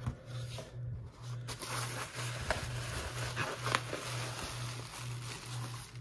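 Plastic bubble wrap rustling and crinkling with scattered small crackles as it is handled and lifted out of a cardboard box. A low hum that pulses about twice a second sits underneath.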